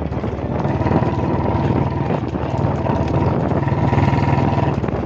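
A motor vehicle engine running steadily at speed, with wind and road noise.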